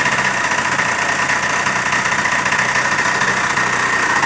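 Yamaha Jog scooter engine idling steadily just after starting, with a knock coming from inside the engine.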